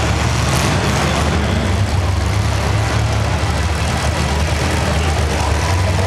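Demolition derby car engines running with a loud, steady low rumble.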